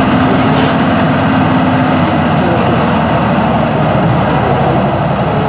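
Tatra 815 trial truck's diesel engine running steadily under load as the truck crawls through mud and brush, with a brief hiss about half a second in.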